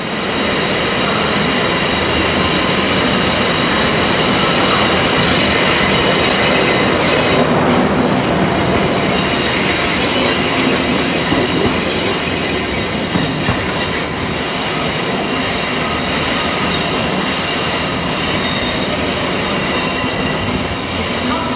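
Yellow on-track maintenance train, a tamper, running past along the platform: a steady train rumble with a high whine of several tones held above it the whole way.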